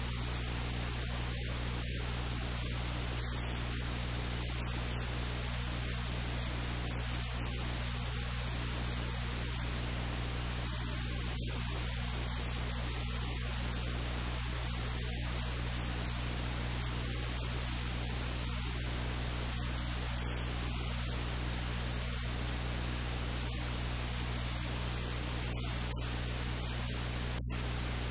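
Steady hiss of static with a low steady hum underneath.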